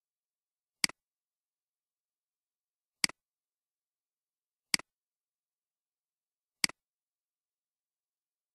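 Four computer mouse clicks a couple of seconds apart, each a sharp tick followed at once by a softer second tick.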